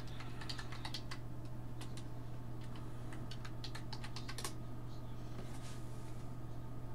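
Typing on a computer keyboard: a quick run of keystrokes for about four and a half seconds, then it stops. A steady low hum runs underneath.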